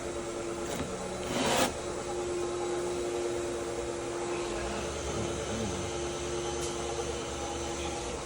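Steady mechanical hum at one pitch, with a brief rushing swish about a second and a half in and a low rumble joining in the second half.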